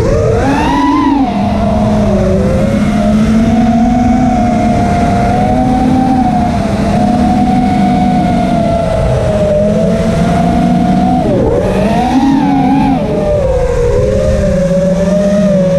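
The four brushless motors and propellers of a 5-inch FPV racing quadcopter (T-Motor F40 Pro II 2600kv) whine as they fly. The pitch rises and falls with the throttle: a sharp rise about a second in, a fairly steady whine through the middle, then quick dips and climbs around two-thirds of the way through and again near the end.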